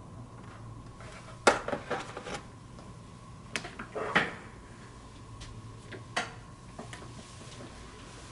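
Handling noise close to the microphone: a handful of sharp knocks and clicks with some rustling as a man bends and moves right beside the camera, the loudest about a second and a half in and another about four seconds in, over a faint steady hum.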